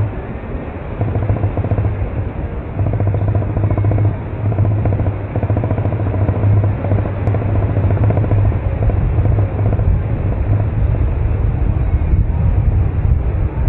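Wind rushing over the microphone of a camera carried on a soaring paraglider: a loud, gusting low rumble that swells about a second in.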